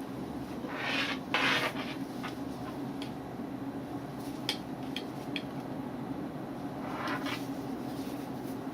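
Small objects being handled: a few rubbing, scraping swishes and several light, sharp clicks, over a steady low hum.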